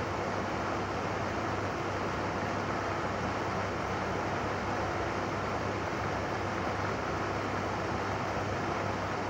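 Steady rushing noise with a low, even hum underneath, unchanging throughout.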